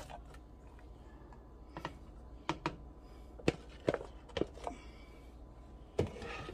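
A handful of light, irregular taps and clicks of a plastic container and a spoon knocking against a stainless steel cooking pot, with a somewhat louder knock about six seconds in as the spoon goes into the pot.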